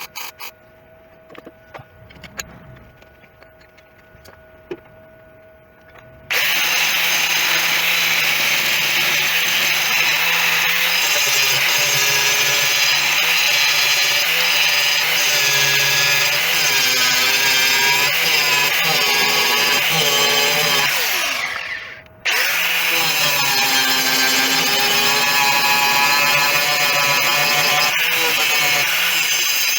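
A few quiet seconds with faint clicks, then an angle grinder starts suddenly and runs loud and steady on sheet steel, its pitch wavering as it is pressed into the work, likely dressing down the welds on the patch. About two-thirds through it is released and spins down with a falling whine, then starts again straight away.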